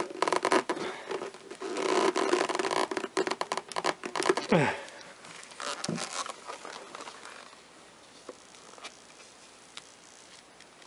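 Gloved hands pressing and working a Corvette C5 side-mirror glass assembly onto its base: dense rubbing, scraping and clicking of plastic and glove fabric for about the first five seconds, with a short falling creak. It then drops to faint handling with a few light ticks.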